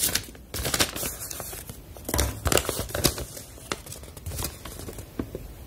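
Paper warranty card and folded leaflets rustling and crinkling in irregular crackles as they are handled and unfolded.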